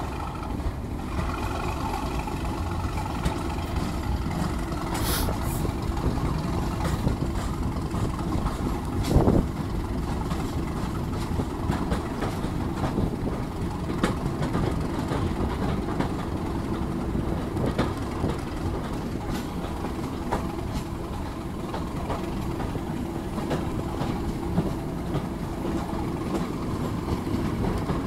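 Heritage train running at speed, heard from an open carriage window: Class 37 diesel locomotive D6700, its English Electric V12 engine working hard at the head of the train, over the steady rumble of wheels on the track. A louder thump stands out about nine seconds in.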